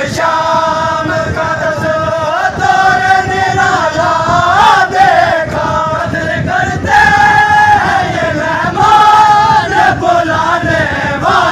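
A crowd of men chanting a Shia noha (mourning lament) together, loud, in long held lines that rise and fall in pitch.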